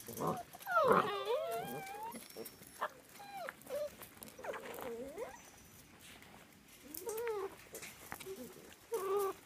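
Six-week-old Australian Labradoodle puppies whining in short, high, sliding cries. Several overlap about a second in, then single whines come on and off.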